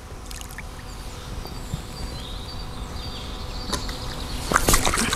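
A low, steady outdoor background with a faint high whine, then several sharp splashes near the end as a hooked carp breaks the surface and is drawn over the landing net.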